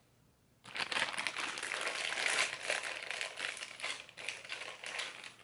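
A thin plastic Happy Meal toy bag crinkling and crackling as it is handled and torn open, starting about half a second in and dying away near the end.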